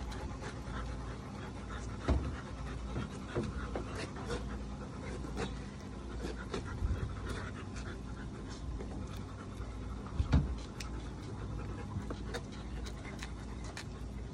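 A large dog panting steadily, with scattered short clicks and one louder knock about ten seconds in.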